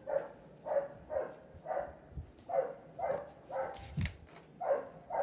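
An animal calling over and over, about two short calls a second. About four seconds in, a single sharp rustle as a picture-book page is turned.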